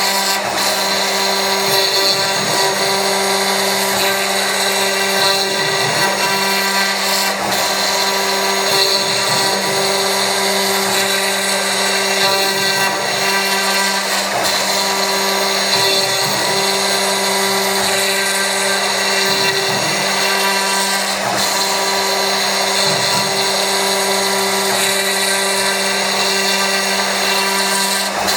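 CNC milling machine cutting with a 3 mm-radius ball-nose end mill: a steady whine of several held tones over a hiss, with a low hum that wavers in strength and a few faint clicks.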